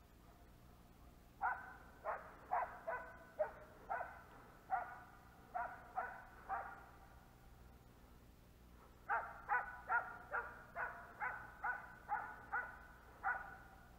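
Hunting dogs barking in two runs of quick, sharp barks: about ten in the first half, then after a pause of about two seconds a dozen more.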